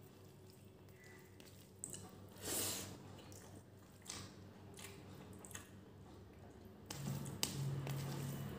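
Fingers mixing vegetable pulao with beef curry gravy on a steel plate: soft, wet squishing with small clicks, and one louder squelch about two and a half seconds in. A low steady hum comes in near the end.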